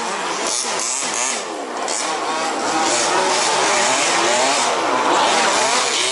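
Several 1/5-scale two-stroke petrol RC buggy engines racing at once, each revving up and easing off, their pitches rising and falling over one another.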